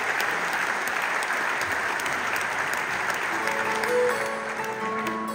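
Audience applauding in a concert hall, the clapping thinning out as the band starts to play. Steady instrument notes come in about three seconds in.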